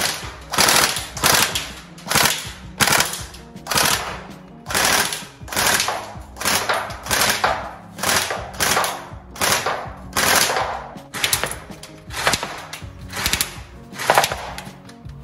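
Tokyo Marui next-generation SCAR-L electric airsoft gun firing a steady string of shots, a little under two a second, each a sharp mechanical clack of the gearbox and recoil mechanism. Background music runs underneath.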